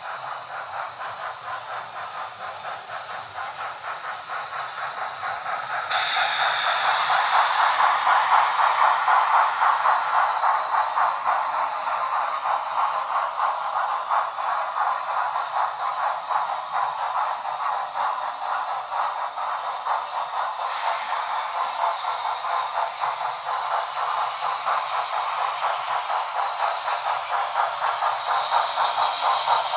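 HO scale model steam locomotives running with rapid, steady steam chuffing from their small onboard sound speakers, together with the clatter of the trains on the track. It gets louder about six seconds in, as a second locomotive comes close.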